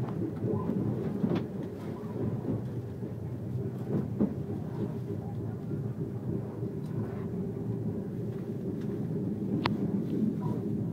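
Moving train heard from inside the passenger carriage: a steady low rumble, with a few sharp clicks, the sharpest near the end.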